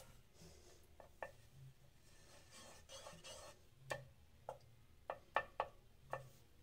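Wooden spatula stirring melting ghee in a nonstick kadhai: faint scraping, with light taps of the wood on the pan, several in quick succession near the end.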